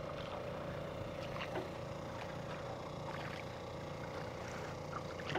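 Small boat's motor running steadily at cruising speed, an even hum with a constant drone.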